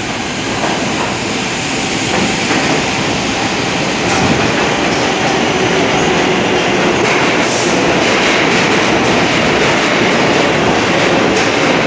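New York City subway train pulling into an underground station, its wheels and cars running along the rails and growing louder as they pass close by.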